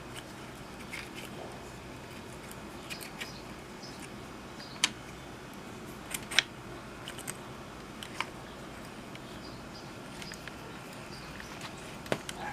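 Scattered sharp metallic clicks and clinks of hand tools on handlebar bolts being loosened, about eight in all, the loudest about five and six seconds in, over a steady low hum.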